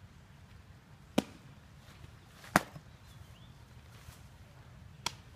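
Sharp leather smacks of a pitched softball meeting a glove. The loudest, about two and a half seconds in, is the pitch popping into the catcher's mitt; a fainter smack comes about a second in and another near the end.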